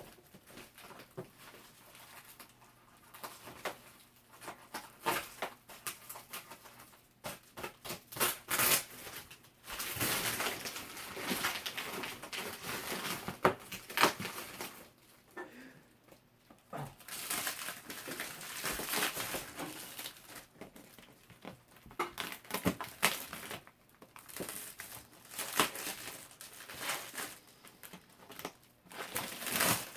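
Packaging being handled and pulled apart, rustling and crinkling in irregular bursts with short pauses between them, as a JBL LSR310S subwoofer is unboxed.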